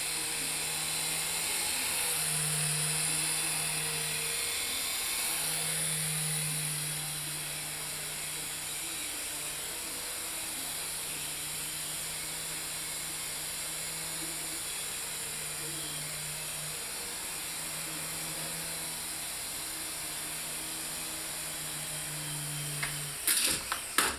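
Syma S107 coaxial RC helicopter's small electric motors and twin rotors whirring steadily in flight, the hum swelling and easing a little. Near the end come a few sharp clattering knocks as it crashes to the floor.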